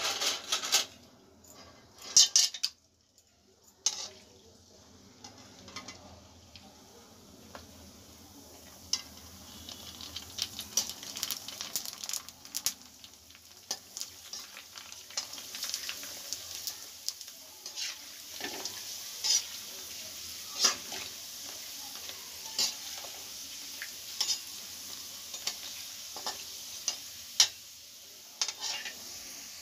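Puris for panipuri deep-frying in hot oil in a steel kadai: a steady sizzle that builds up after the first few seconds. Frequent sharp clinks and scrapes of a slotted steel spoon against the pan run through it, loudest a couple of seconds in.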